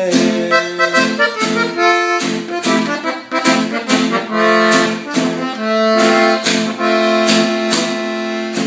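Hohner diatonic button accordion playing an instrumental fill between sung verses of a norteño corrido, a run of quick notes and held chords.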